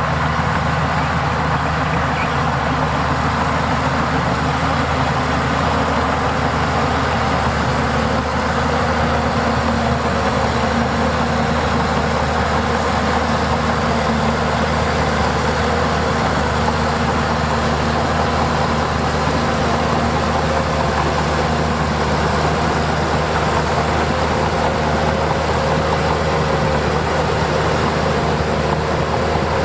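Heavy diesel engine of earth-moving machinery running steadily at an even pitch.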